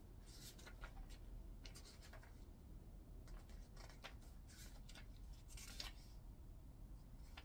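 Pages of a small paperback book being leafed through: faint, irregular paper rustles, over a low steady hum.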